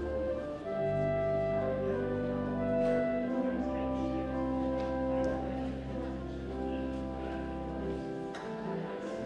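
Slow instrumental music of long held chords over deep sustained bass notes, the chords changing every few seconds.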